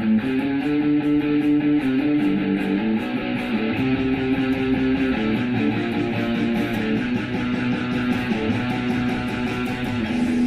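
Electric guitar played through a Line 6 POD HD amp modeler: strummed chords that change every second or two.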